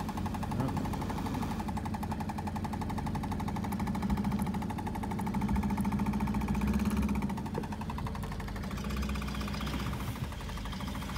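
1983 Buick Electra's engine running at low speed with a fast, even pulsing, getting a little louder about six seconds in and easing off a second or so later. The car has an exhaust leak.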